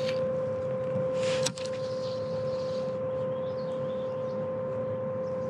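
A steady tone held at one pitch, over a low rumbling noise, with one short click about one and a half seconds in.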